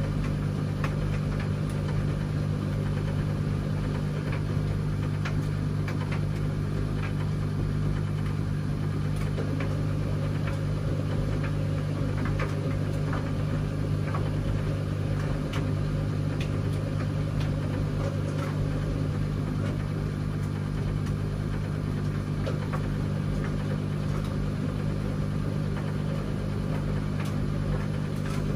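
Washing machine running with a steady motor hum at constant pitch and faint, scattered light clicks and rattles.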